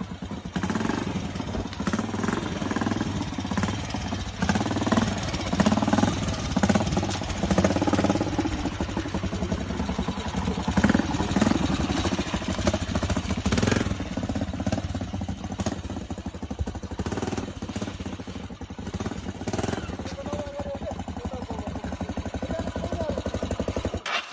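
Motorcycle engine running under load during an uphill ride, a dense, steady rumble that cuts off suddenly near the end.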